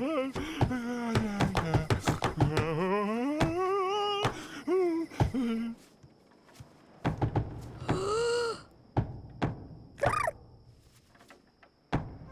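Cartoon soundtrack: a wobbling, sliding melody over quick clicks for about the first half. It then drops to a quiet stretch of scattered soft thunks and two short swooping tones.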